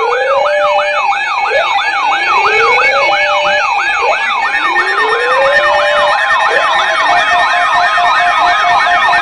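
Several electronic sirens sounding together: a fast yelping siren sweeping up and down about three times a second over a steady tone, joined by a slower wailing siren that rises and levels off every couple of seconds and drops out about two thirds of the way through.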